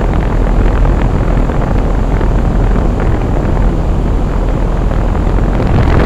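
Bryant Preferred Series heat pump's outdoor condenser fan running: a loud, steady rush of air with a deep rumble from the discharge air buffeting the microphone over the top grille.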